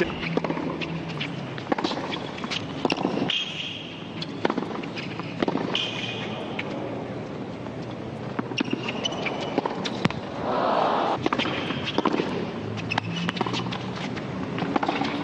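Tennis rally on a hard court: racquet strings striking the ball again and again at uneven intervals, with short squeaks of shoes on the court between shots and a low crowd murmur. The crowd noise swells briefly about ten seconds in.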